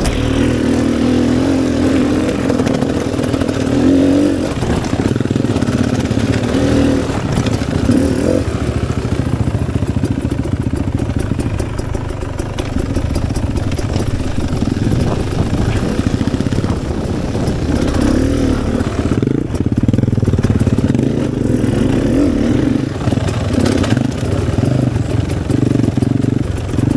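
Dirt bike engine running under throttle on a trail ride, revving up and dropping back repeatedly as the rider works the throttle.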